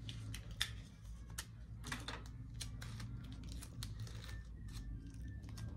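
Hands rustling and shifting the items and wrapping in a wicker gift basket: scattered light ticks and short crinkles at an uneven pace, over a low steady hum.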